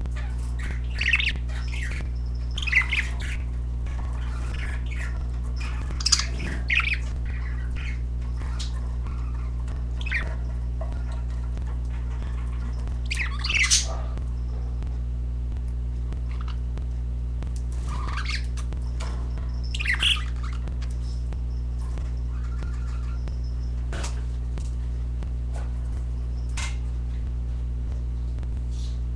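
Pet budgerigars (parakeets) giving short chirps and squawks every few seconds over a steady low electrical hum.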